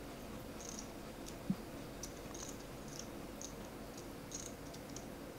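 Poker chips clicking faintly and irregularly as a player handles his chip stacks at the table, with one low thud about a second and a half in.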